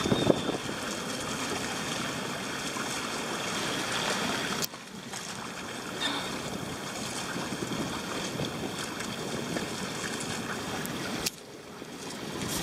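Wind buffeting the microphone over water rushing past the hull and outriggers of a paraw, a Philippine outrigger sailboat, under sail. The noise drops abruptly twice, about five seconds in and near the end.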